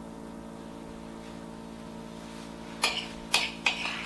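A steady low hum, then three short, sharp clatters of kitchenware in quick succession near the end, like a utensil knocked against a mixing bowl while topping is poured out.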